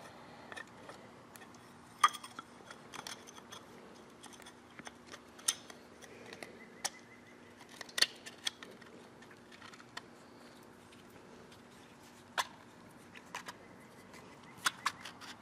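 Scattered sharp metallic clicks and taps as a piston is handled and pushed into a steel tapered ring compressor sleeve, the two loudest about two seconds and eight seconds in, over a faint steady hum.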